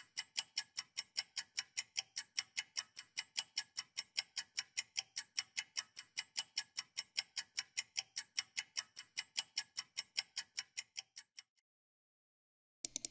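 Countdown timer sound effect: fast, even clock-like ticking, about four and a half ticks a second, stopping about eleven seconds in. A couple of quick clicks come right at the end.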